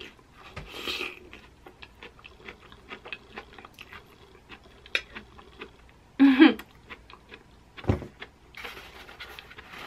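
A person slurping in a forkful of pesto-coated zucchini noodles, then chewing with many small wet clicks. A short hum of the voice comes about six seconds in, followed by a sharp knock near eight seconds.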